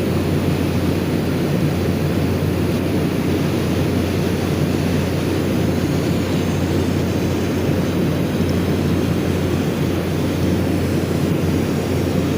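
Steady, loud noise of a weld seam being cut out of a steel job, running without a break: the over-thick weld is being removed so it can be rewelded.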